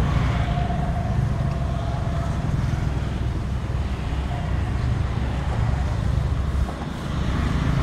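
Steady low engine rumble of roadside traffic, dipping briefly near the end.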